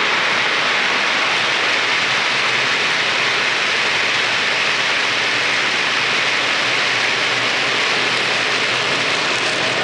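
OO gauge model freight train, a diesel locomotive hauling a long rake of open hopper wagons, rolling past close by: a steady rushing hiss of metal wheels on the rails that eases slightly near the end as the last wagons pass.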